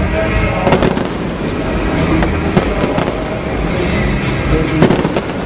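Aerial fireworks shells bursting with several sharp bangs, spread through the few seconds, over music playing.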